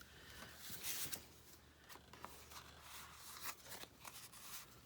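Faint rustling and handling of paper pieces, with a short slide of paper about a second in and a few light taps and clicks later.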